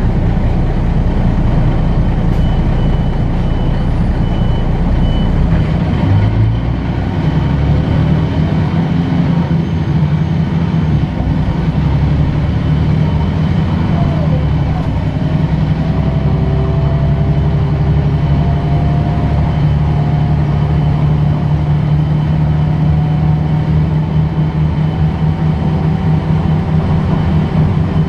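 Articulated diesel city bus heard from inside the passenger cabin while driving: a steady engine drone that shifts in tone about seven seconds in, then a thin whine from the driveline that rises slowly in pitch through the second half as the bus gathers speed.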